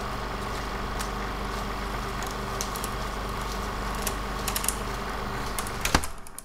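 A steady mechanical running hum with scattered crackles and ticks, in the manner of an old film-projector sound effect. A louder click comes near the end, then it fades out.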